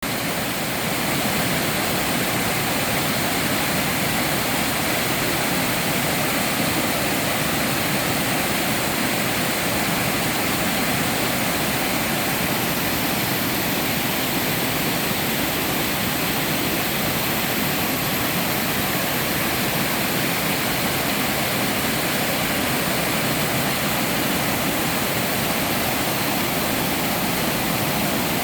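Small mountain waterfall pouring steadily into a pool: a continuous dense rush of falling water, fading in over the first second.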